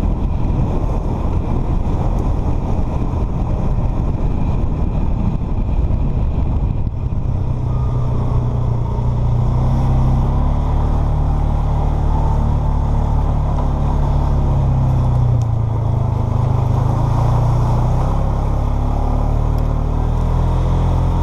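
Polaris Sportsman 500 ATV's single-cylinder four-stroke engine running steadily while the quad is ridden. The engine note firms up and grows louder about seven seconds in.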